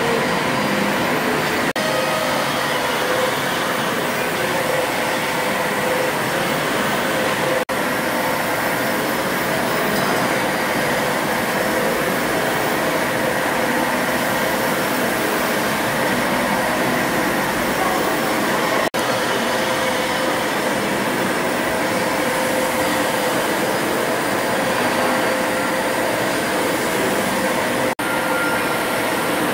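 Stationary steam engines running: a steady, dense mechanical noise with hiss and faint hum, without a clear beat. It is broken by a few very brief dropouts.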